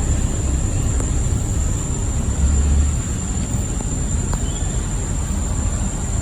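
Steady low rumbling noise with a constant high-pitched whine above it and a couple of faint clicks.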